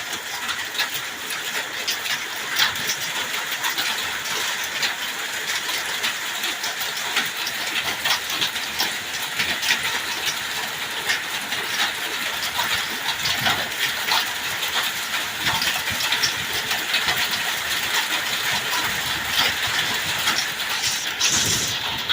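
Hail and heavy rain pelting down steadily, a dense irregular clatter of many small hits.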